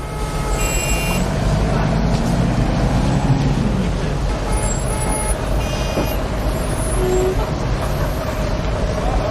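Heavy city traffic: engines running and vehicles moving past in a steady low rumble, with one engine note rising and then falling in the first few seconds and a few brief high-pitched tones.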